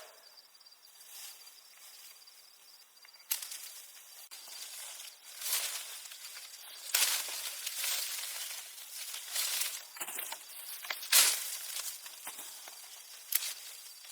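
Rustling and crackling of leaves and plant stems being handled, in irregular bursts that grow louder after the first few seconds. A faint steady high tone sounds under the rustling in the first few seconds.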